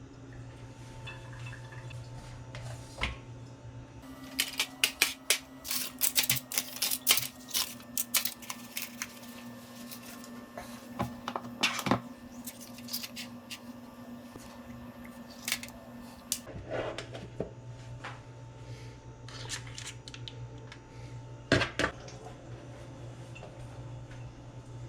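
Kitchen utensils clinking and clattering against dishes and bowls, in a busy run of quick knocks for about twelve seconds and a few more near the end, over a steady low hum.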